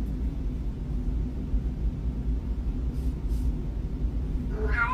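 Steady low rumble, with a short rising meow from a cat near the end.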